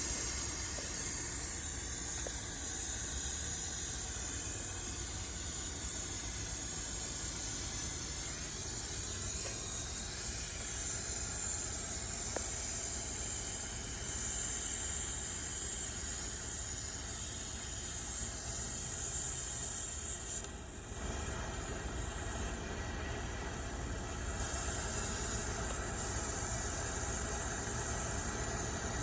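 Brazing torch flame hissing steadily while copper refrigerant line joints are brazed, with a brief drop and a couple of short swells about two-thirds of the way through.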